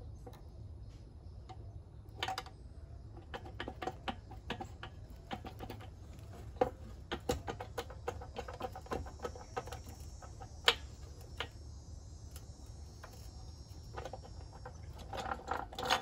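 Hand tools clicking and tapping on a Predator 97 cc engine as it is taken apart: irregular light clicks and metal taps, with one sharper click about eleven seconds in.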